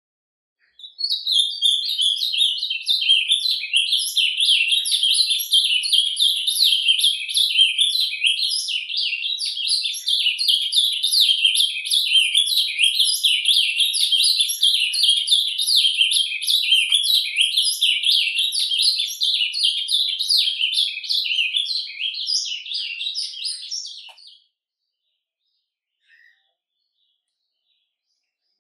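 Ultramarine grosbeak (azulão) singing its surdina, a long unbroken run of rapid, twittering warbled notes, starting about a second in and stopping a few seconds before the end. One faint short chirp follows shortly after.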